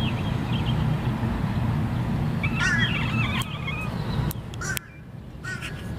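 Short, high, wavering chirping calls, a few near the start and a busier run about two and a half seconds in, over a steady low hum.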